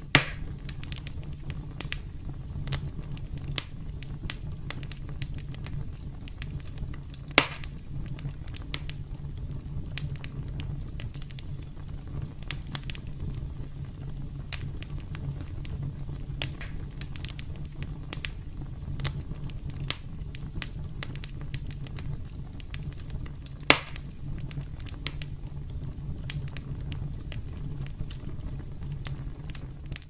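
Wood campfire burning: a steady low rumble with frequent small crackles and three louder pops, just at the start, about seven seconds in, and about three-quarters of the way through.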